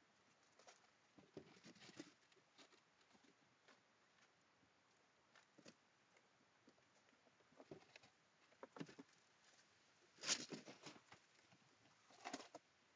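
Gray squirrels foraging in dry fallen leaves: scattered crackles and rustles in irregular clusters, the loudest about ten seconds in.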